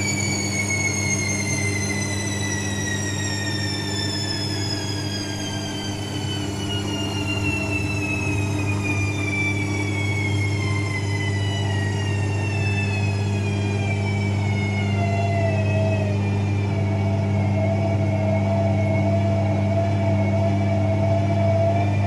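AEG Lavamat front-loading washing machine in a spin: a steady low motor hum under a high whine that falls in pitch for about fifteen seconds and then holds steady as the drum slows to a lower speed.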